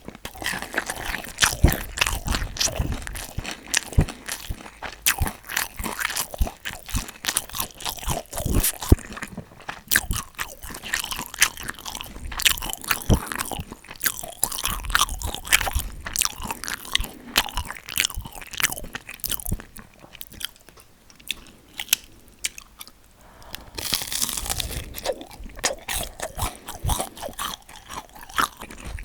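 Close-miked eating: crunchy bites and chewing, with many sharp crackles, quieter for a few seconds then picking up again near the end.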